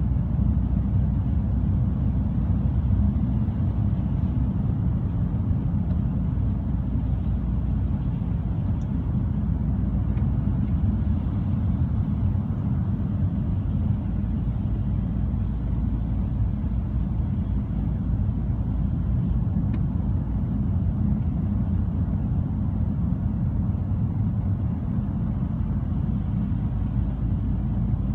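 Steady low rumble of a car being driven, heard from inside the cabin: engine and road noise, even throughout with no changes in speed.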